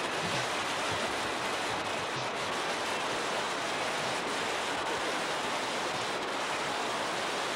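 Whitewater river rapids rushing over boulders: a steady, even wash of water noise.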